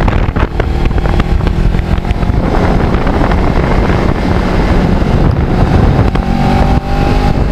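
Kawasaki Ninja 650R's parallel-twin engine running under way, with heavy wind rush on the microphone; the engine note climbs slightly in the last couple of seconds as it pulls.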